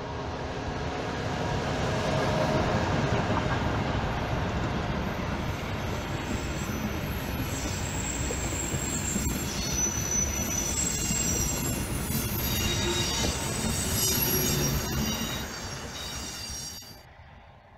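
A small diesel locomotive and its train of old passenger coaches passing close by on the rails. Engine noise and wheel rumble build up over the first few seconds. As the coaches roll past, the wheels squeal in high thin tones. The sound drops off sharply near the end.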